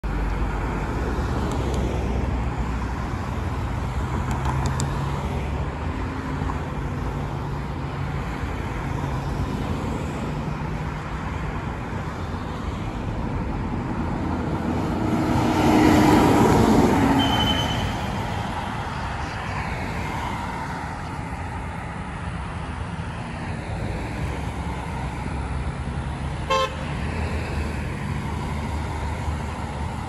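Road traffic passing, with a 2022 Blue Bird Vision school bus's diesel engine growing loudest as it drives by about halfway through, then fading. A short horn toot sounds a few seconds before the end.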